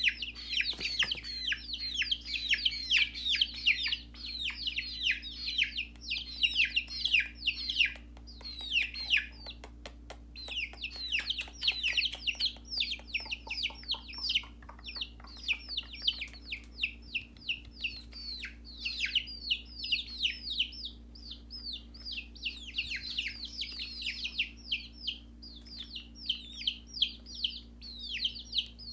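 Chicks peeping continuously: short, high, falling peeps, several a second, over a steady low hum.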